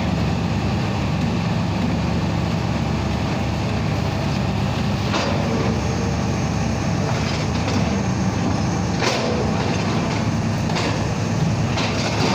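Crane engine running steadily under load while hoisting a load of cement bags, with a few sharp metallic knocks about five, nine and eleven seconds in.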